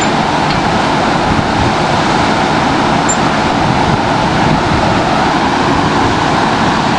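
Steady, loud rushing noise with no distinct events, like wind or distant road traffic on the camcorder microphone.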